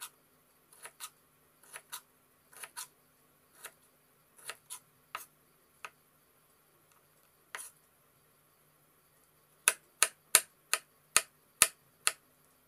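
Kitchen knife dicing a tomato on a wooden cutting board: sharp knocks of the blade striking the board, spaced about a second apart at first, then after a short pause a quicker run of about seven louder chops near the end.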